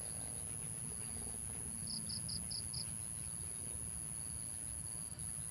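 An insect chirping: a quick run of five short, high chirps about two seconds in, over a steady low rumble.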